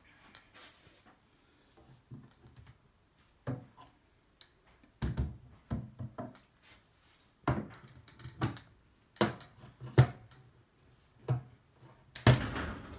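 Old wooden kitchen cabinet doors and drawers being opened and knocked about: a string of about ten knocks and thuds, the loudest about ten seconds in and a longer clattering bang near the end.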